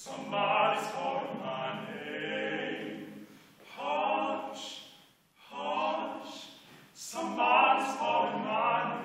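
Male vocal quartet singing a cappella, in four phrases with short breaks between them.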